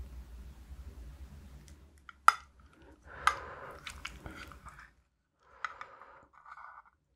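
A wooden spoon scooping spicy braised cutlassfish stew into a stainless steel rice bowl. The spoon clicks sharply on the metal bowl twice, about a second apart, among soft wet squishing of sauce and rice.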